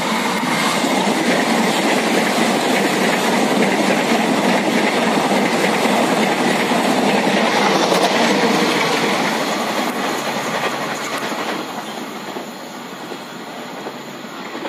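Red-and-white electric commuter train passing close by, its wheels running over the rails. The sound builds to its loudest about eight seconds in, then fades as the train moves away.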